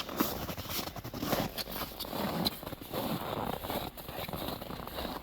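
Footsteps crunching through snow, an uneven run of short crunches about two or three a second.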